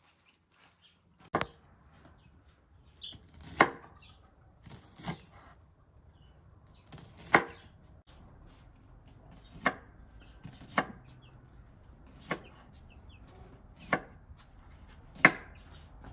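Repeated chopping: about nine sharp blows at uneven intervals, roughly one every second and a half.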